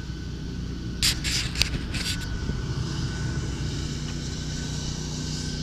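An engine drones steadily and low, with a few short hissing bursts between about one and two seconds in.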